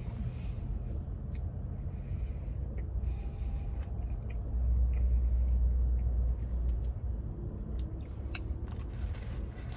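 A person eating a shaved roast beef sandwich: small clicks and faint paper rustling from chewing and handling the wrapped sandwich, over a steady low rumble that swells for a couple of seconds in the middle.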